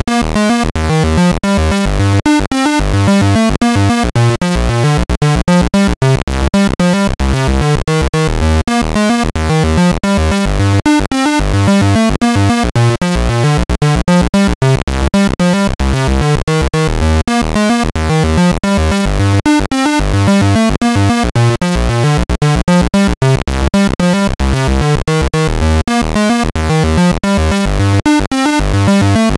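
ZX Spectrum chiptune music from the 4k intro's soundtrack: buzzy 8-bit synth tones stepping through a bass line and melody, with a steady, fast rhythm.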